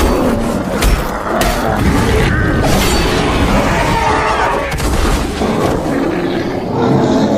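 Creature sound effect for a giant panda: deep booming rumble with repeated sharp impacts, layered with wavering, bending growl-like animal calls.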